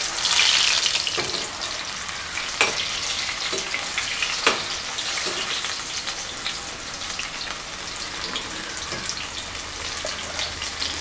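Cauliflower pakoda pieces sizzling and crackling as they deep-fry in hot, bubbling oil in an aluminium kadai, loudest in the first second. They are stirred with a slotted spoon, with two sharp clinks in the first half.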